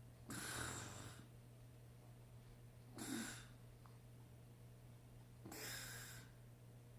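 A sleeping man snoring: three noisy breaths about two and a half seconds apart, the middle one a short snort with a low rasp.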